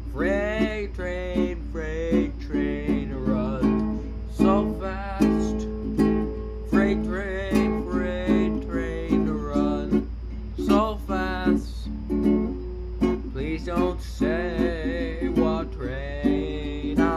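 Ukulele playing an instrumental fingerpicked passage at a steady beat, with a wordless melody line above it that bends and wavers in pitch.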